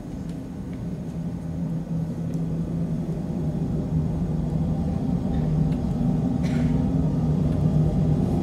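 Low rumbling drone in the music, with a few steady low tones, gradually swelling louder.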